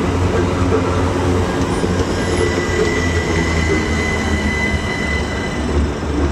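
Pair of c2c Class 357 Electrostar electric multiple units running along the platform with a steady rumble of wheels on rail. From about two seconds in, a thin high wheel squeal is held for some three seconds.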